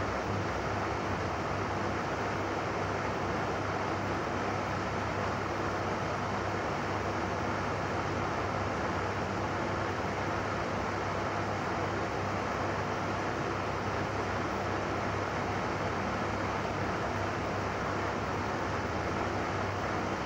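Steady background noise with a low hum under it, unchanging throughout, with no distinct knocks or events.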